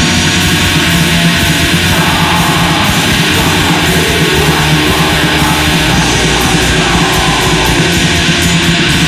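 Black metal music: heavily distorted electric guitars and fast drumming in a loud, dense wall of sound.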